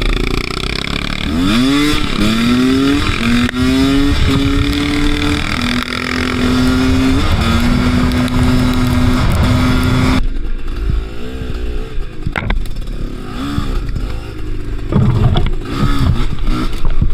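Two-stroke Kews enduro motorcycle accelerating: the engine pitch climbs and drops back several times in quick succession, as with upshifts through the gears, then holds steady. About ten seconds in the throttle is shut and the engine runs at lower, uneven revs, with short bursts of throttle near the end.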